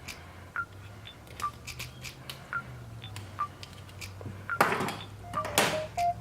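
Light clicks and clinks of hand tools and test leads being handled, about one a second, with two louder rustling bursts near the end.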